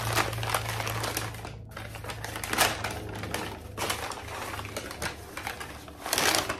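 Brown paper shopping bag crinkling and rustling as hands rummage inside it, in irregular crackles that are loudest about two and a half seconds in and again near the end.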